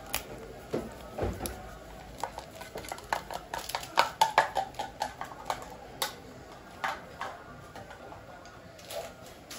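Light clicks and knocks of a metal ladle against the sides of an aluminium cooking pot as spice is added and stirred into a stew, with a quick cluster of sharper clicks about four seconds in.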